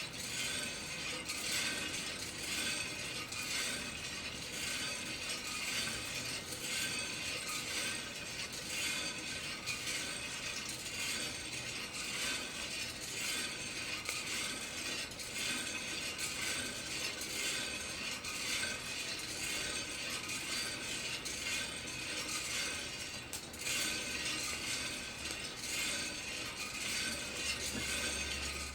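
Coffee beans rattling in the turning drum of a Kaldi home drum roaster, a steady dense clatter of small clicks.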